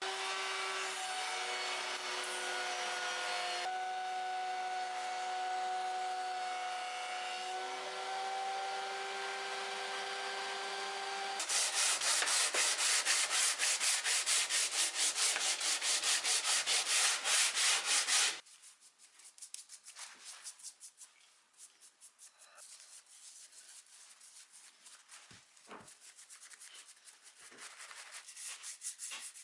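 Old wood being sanded. A power sander runs with a steady whine, then turns louder and harsher about eleven seconds in and cuts off abruptly after about seven seconds. Quieter, irregular rubbing strokes follow.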